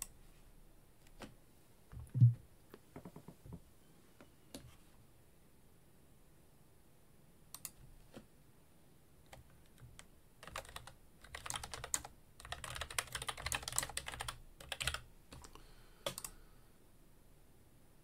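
Typing on a computer keyboard: a quick run of keystrokes for about four seconds past the middle, with scattered single clicks before it. A dull thump about two seconds in is the loudest sound.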